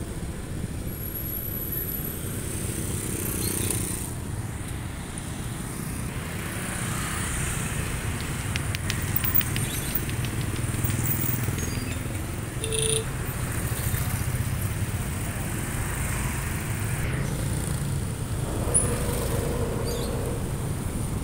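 Motorcycles and scooters running past on a busy street: a steady low engine rumble. A quick run of ticks comes about nine seconds in.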